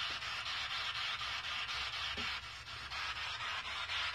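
SB7 Spirit Box sweeping through radio stations: a steady hiss of radio static broken into a fast, even ticking as it steps from station to station.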